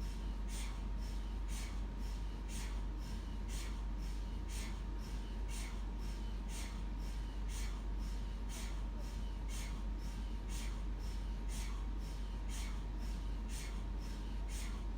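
MRI scanner running a scan sequence: rhythmic, sharp knocking from the gradient coils at about two to three knocks a second, over a steady low hum.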